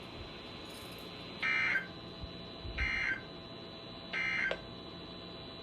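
Emergency Alert System end-of-message signal: three short, rasping digital data bursts about a second and a half apart, marking the end of the broadcast warning.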